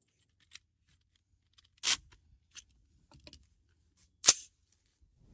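A handful of sharp clicks and snaps from an AR-15-style rifle being handled at its magazine well, about five in all, the loudest just after four seconds.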